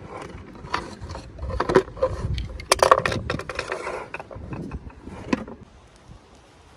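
Toy packaging being handled and opened by hand: irregular clicks, taps and scraping. The sounds are busiest in the middle and die down near the end.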